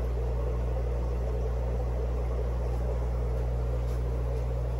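Steady low hum with a hiss over it: fish-room aeration equipment, an air pump driving the tanks' sponge filters, running continuously.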